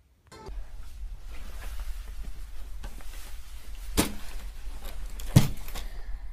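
Rustling and two sharp knocks, the second louder, as a child moves about and sits down in an armchair, over a low steady hum.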